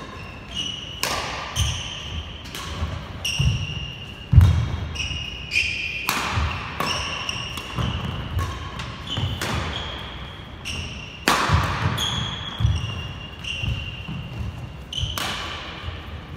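Badminton rally: sharp racket strikes on the shuttlecock every second or so, many short high squeaks of court shoes on the wooden floor, and thudding footsteps.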